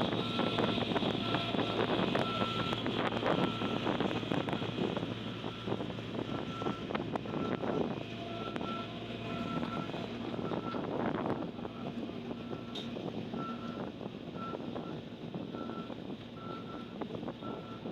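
Reversing alarm of a heavy construction vehicle beeping in a steady run of short, evenly spaced beeps over the running of its diesel engine, with some wind on the microphone.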